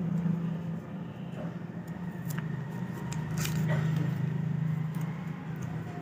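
Paper wrapper of a double-edge razor blade being unfolded and crinkled by hand, giving a few light crackles over a steady low hum.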